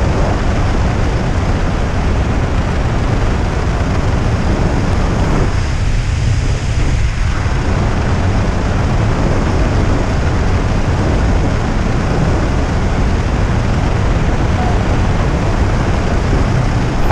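Steady wind noise rushing over a helmet camera's microphone during parachute canopy flight, a loud, even rumble heaviest in the low end.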